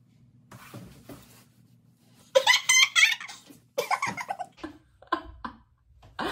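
A woman laughing: a loud run of laughter about two seconds in, followed by a few shorter bursts.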